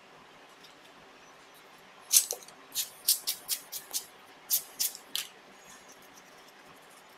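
Rubber hand air-blower bulb squeezed in quick succession, about ten short hissing puffs of air over three seconds, blowing out dust packed between a laptop's cooling fan and heat sink.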